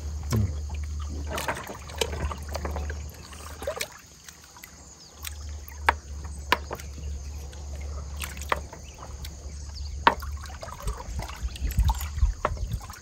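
River water lapping and trickling against a floating wooden deck, over a steady low rumble. Scattered light clicks and taps come through at intervals.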